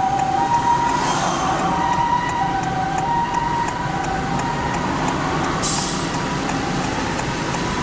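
Japanese ambulance two-tone "pee-poh" siren alternating high and low about every half second over traffic noise, growing fainter toward the end. A short hiss about five and a half seconds in.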